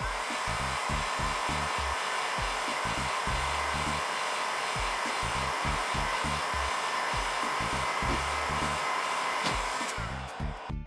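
Black & Decker heat gun blowing steadily over a phone's cracked glass to soften the adhesive beneath it, stopping near the end. Funky background music with a bass line plays underneath.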